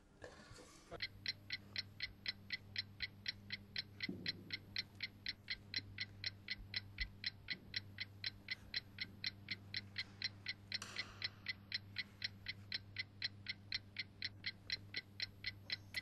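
Clock ticking quickly and evenly, about three ticks a second, over a steady low hum. A short whoosh comes at the start and another about eleven seconds in.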